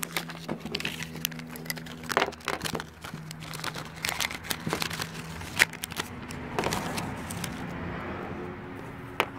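Crinkling and rustling of anti-static plastic bags being handled and opened, with scattered small clicks, over a steady low hum.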